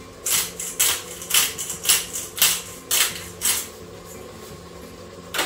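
Hand pepper mill being twisted over a pot, about eight short grinding strokes roughly two a second, stopping about three and a half seconds in. A single sharp click comes near the end.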